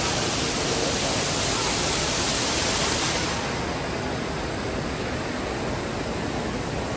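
Steady rush of water from an artificial rock waterfall pouring into a pool. About three seconds in the high hiss drops away and a softer, duller rush of water carries on.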